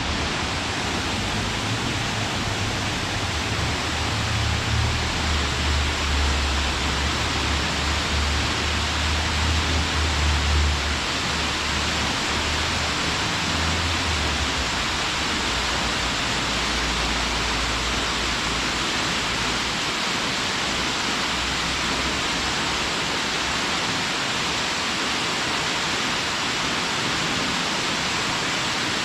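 Waterfall pouring steadily: a dense, even rush of falling water. A deep low rumble runs beneath it through the first half and fades out around the middle.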